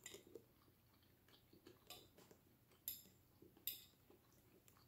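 A metal fork clicking against a glass plate as pasta is picked up, four sharp clicks about a second apart with small ticks between, over near silence.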